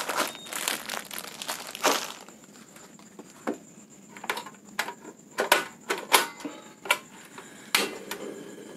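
Plastic bread bag crinkling and rustling as it is opened and the sliced bread is handled. This is followed by a series of separate sharp crackles spaced irregularly about half a second to a second apart.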